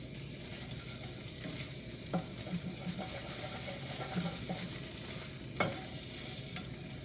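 Scrambled eggs sizzling in a frying pan with a steady hiss, while a utensil stirs and scrapes them, knocking against the pan a couple of times, most sharply about five and a half seconds in.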